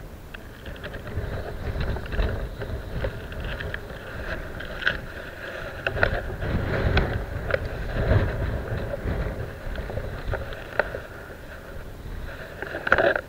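Wind buffeting the microphone, with rustling and scattered clicks from gloved hands and fishing tackle handled right against it; a sharp knock near the end is the loudest sound.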